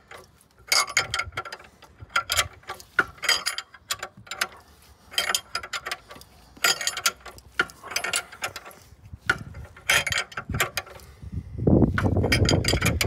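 Hand ratchet turning the draw bolt of a bush-press tool, clicking in short runs about once a second, as a new rear upper suspension bush is drawn into the hub carrier. A louder rumbling scrape comes near the end.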